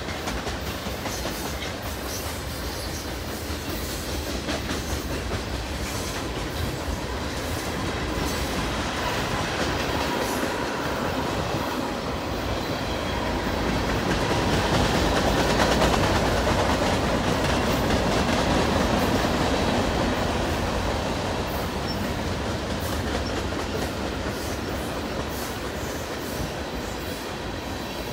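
Freight train tank cars rolling past on the main line: a steady rumble of steel wheels on rail with light clicking. It grows louder to a peak about halfway through, then eases off.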